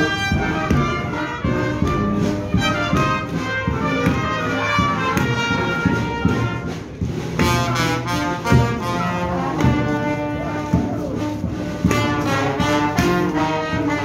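Brass band playing a processional tune, trumpets and trombones over a steady drum beat.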